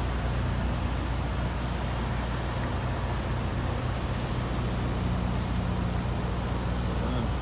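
Steady low hum of idling truck engines, an even drone with no starts or stops.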